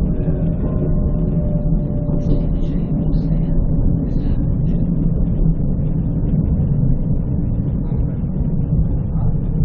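Končar NT 2200 low-floor electric tram running along the track: a steady, loud rumble of wheels and running gear, with a faint electric motor whine that fades in the first second or two.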